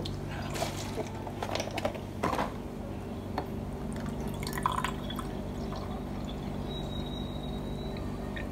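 Liquid poured from a bottle into a glass tumbler, trickling and splashing as it fills. In the first two seconds there are a few light knocks and clicks of a knife on a plastic cutting board. A steady low hum runs underneath.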